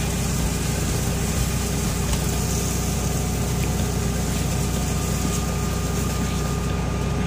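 RV's onboard generator running steadily at idle, a constant low engine hum.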